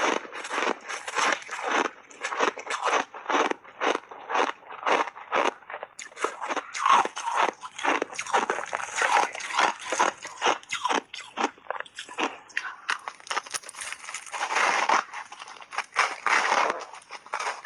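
Close-miked crunching and chewing of powder-coated block ice: a fast, irregular run of sharp cracks as the ice breaks between the teeth, with a fresh bite into a new block near the end.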